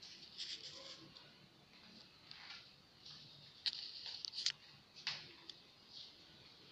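Footsteps on a hard marble floor: scattered sharp clicks and scuffs of shoes, the loudest few coming close together a little past the middle.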